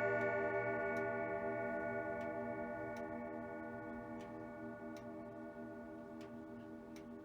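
Sligh triple-chime grandfather clock's chime rods ringing on after the last hammer strike, slowly fading away, while the movement ticks about once a second.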